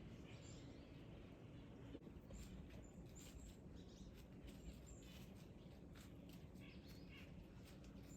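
Near silence: faint outdoor ambience with small birds giving short, high chirps now and then.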